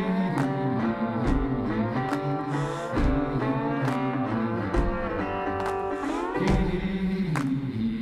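Background music: instruments playing held, shifting chords over a steady beat of a little more than one stroke a second.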